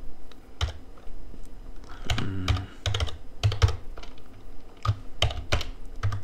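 Typing on a computer keyboard: irregular keystrokes, some in quick runs, as a word is entered.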